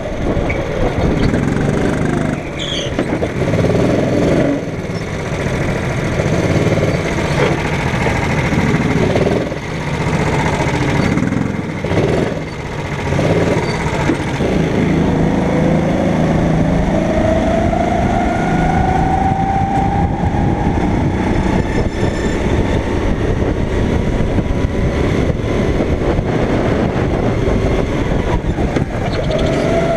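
Go-kart engine running hard, its pitch dropping and climbing back several times in the first half, then a long steady climb in pitch from about the middle.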